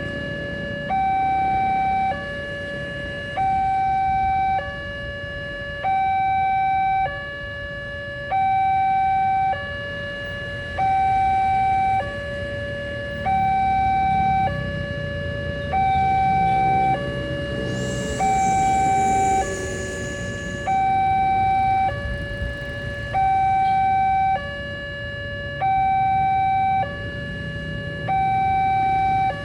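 Railway level-crossing warning alarm sounding its two-tone signal, a higher and a lower electronic tone alternating evenly about every 1.2 seconds, over low traffic noise.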